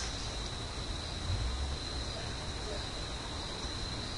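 A steady high-pitched whine over an even background hiss, with a brief low rumble about a second and a half in.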